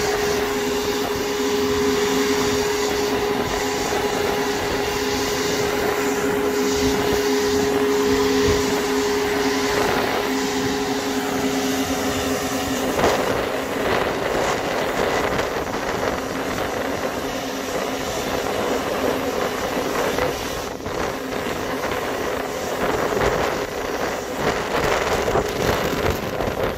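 Marine travel lift's engine and hydraulic drive running steadily with a humming whine as it lowers a yacht in its slings toward the water. About halfway through, the whine stops and a rougher, rushing mechanical noise carries on.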